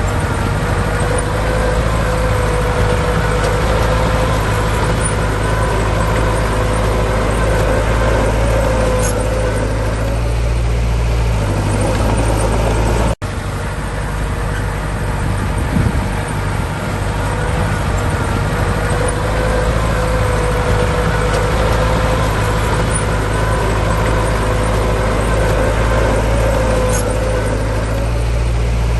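Heavy diesel earthmoving machinery running steadily at a work site, with a steady whine over the engine. The sound cuts out for an instant about thirteen seconds in, then carries on.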